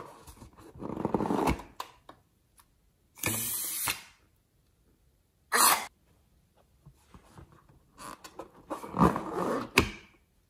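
Rubber balloons filled with coloured slime liquid being handled and squeezed, the liquid squirting out of the balloon necks into a glass bowl of glue in four separate noisy bursts.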